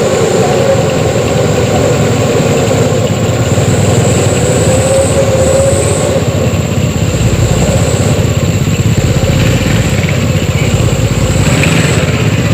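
Mitsubishi Canter light truck's diesel engine running steadily and loud, with a wavering higher whine over the first half that fades out about halfway through.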